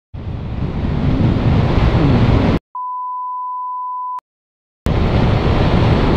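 Wind rushing over the microphone of a moving motorcycle. About two and a half seconds in, it cuts to silence and a steady, high, single-pitch censor bleep lasting about a second and a half. The wind noise returns near the end.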